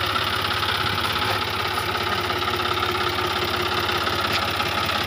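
John Deere 5045 D tractor's three-cylinder diesel engine idling steadily, with an even, rapid diesel clatter.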